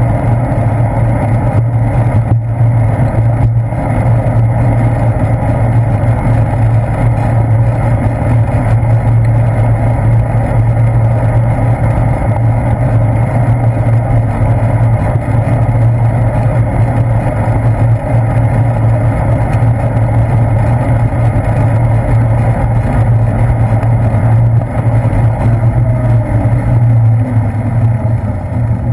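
Steady, loud rumble of wind buffeting and road vibration from a bicycle riding along pavement, heard through a handlebar-mounted GoPro's waterproof housing, with a constant low drone throughout.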